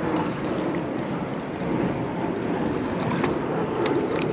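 Steady rushing noise of river water flowing over rocks, with wind on the microphone. A couple of small clicks near the end as a white perch is handled and unhooked.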